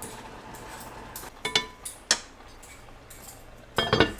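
Kitchen clatter: a few light, sharp clinks of utensils against dishes, then a louder ringing clatter near the end.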